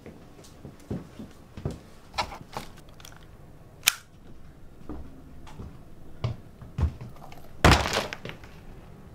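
A run of sharp metallic clicks and knocks from a SIG Sauer P220 pistol being handled, with the loudest, longer clack near the end.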